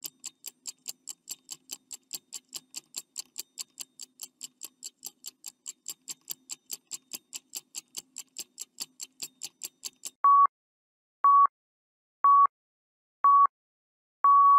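Quiz countdown-timer sound effect: a clock ticking quickly, about four ticks a second, for about ten seconds, then four short electronic beeps a second apart and a longer final beep near the end, signalling that time is up.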